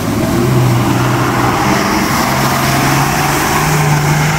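Diesel four-wheel-drive's engine pulling hard under heavy throttle as it drives through a muddy stream and climbs a steep bank, with water splashing. The engine note holds steady, dips briefly about two seconds in and rises slightly near the end.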